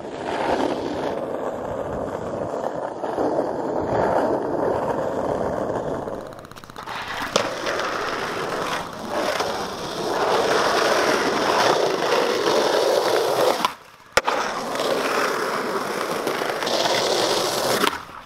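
Skateboard wheels rolling on rough concrete with a steady rushing grind, broken by a few sharp clacks from the board popping and landing.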